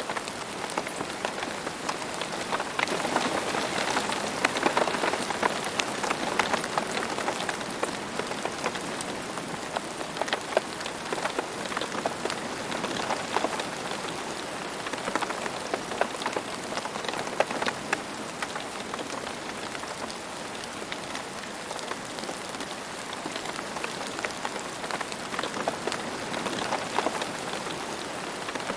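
Steady rain falling, a dense patter of many raindrops striking a surface.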